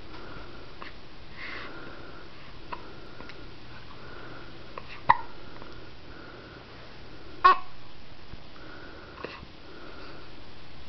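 A baby hiccupping: two sharp hiccups about five and seven and a half seconds in, the second the loudest, with a few fainter hiccups around them.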